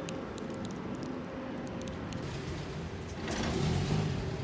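Steady traffic rumble on wet streets, with a car driving past on the wet road about three seconds in, swelling to the loudest point and fading.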